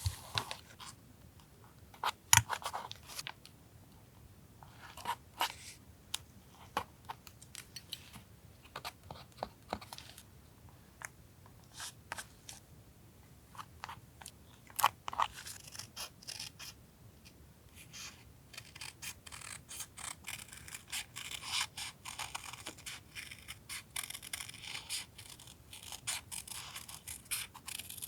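Paper collage crafting: scattered clicks, snips and crinkles of paper and stickers being handled, turning into a denser, scratchy paper rustling about two-thirds of the way through.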